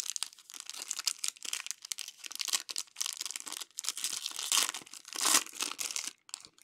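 Foil wrapper of a Panini Crown Royale basketball card pack being torn open and handled, a dense crinkling and crackling of the foil. It swells loudest about four and a half and five and a half seconds in, then stops shortly before the end.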